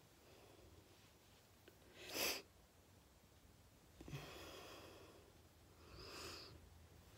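Quiet room with a person's breathing: a short, sharp breath through the nose about two seconds in, then two longer, softer breaths.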